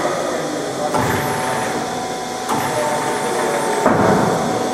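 Concrete block-making machine (vibropress) line running: steady machine noise with several clanks about a second and a half apart as the pallet of fresh blocks is moved out on the conveyor. A steady motor whine sounds for over a second in the latter half.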